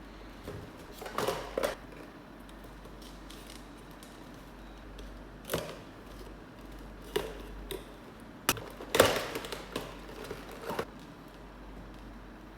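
Toy packaging being handled and opened by hand: scattered clicks, taps and rustles, with a sharp click and a short flurry of handling sounds past the middle.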